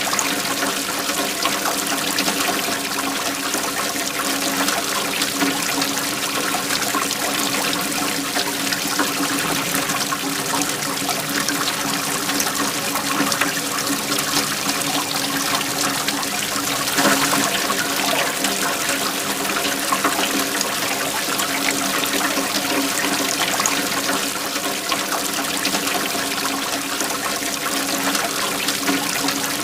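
A waterfall: water pouring and splashing steadily, with one brief louder surge a little past halfway.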